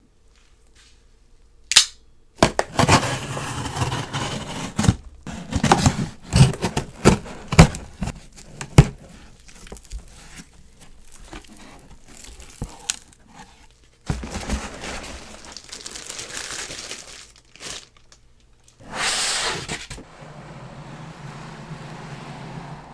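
Packaging being opened by hand: tearing and crinkling of wrapping, with a string of sharp snaps and clicks. A loud snap comes about two seconds in, and several more come between about six and nine seconds.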